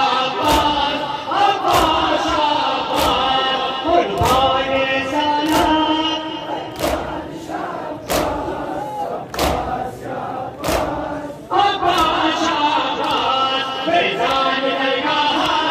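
A large crowd of men chanting a mourning chant in unison, with a loud slap of chest-beating struck together about every second and a quarter.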